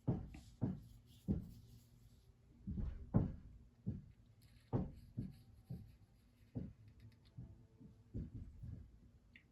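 Irregular knocks and taps of small wooden pieces and tools being picked up and set down on a workbench, about a dozen sharp hits spaced unevenly.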